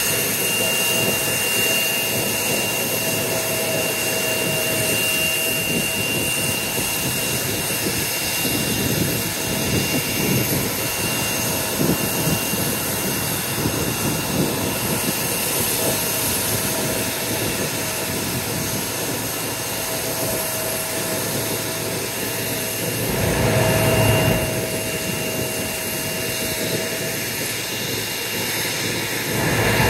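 Bombardier CRJ900 regional jet's rear-mounted GE CF34 turbofans running at ground idle, a steady jet whine over a rushing noise. A louder low rumble swells briefly about three quarters of the way through.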